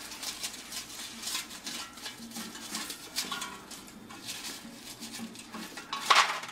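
Clinking and scraping as cooked potato wedges are turned in a perforated metal air-fryer basket with a utensil, then a louder clatter about six seconds in as the basket is tipped and the wedges tumble into an aluminium foil pan.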